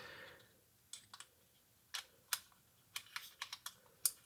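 Light, irregular plastic clicks and taps as ink dampers are handled and fed back into the printhead assembly of an Epson 7880 large-format printer, a few at first and a quicker cluster near the end.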